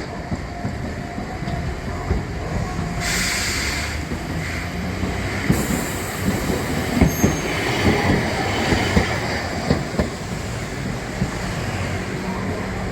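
A rail vehicle running past close by: a steady heavy rumble with wheels clacking over rail joints, the clacks thickest in the middle, and a brief hiss about three seconds in.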